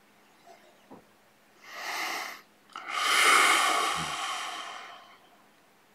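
A man breathing deeply: a short breath in, then a longer, louder breath out that fades away.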